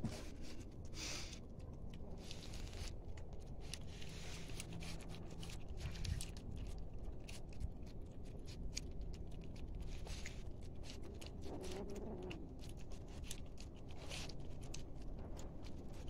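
A mother cat and her kittens eating wet food off cardboard: irregular wet chewing, smacking and licking clicks over a low steady rumble.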